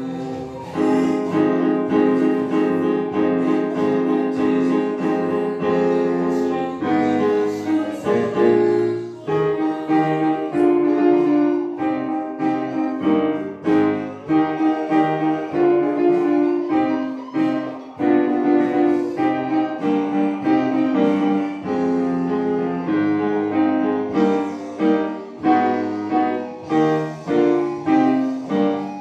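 Piano music played on a keyboard: a steady flow of notes over held chords.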